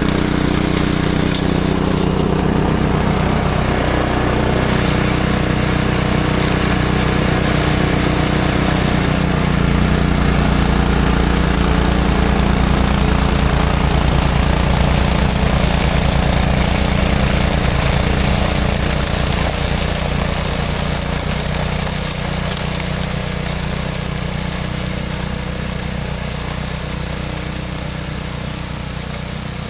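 Snowblower's small gasoline engine running steadily, growing fainter in the last third.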